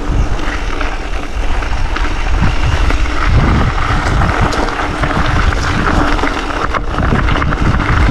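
Wind buffeting a chest-mounted action camera's microphone on a moving mountain bike: a heavy, uneven low rumble, with scattered clicks and rattles from the bike on the track.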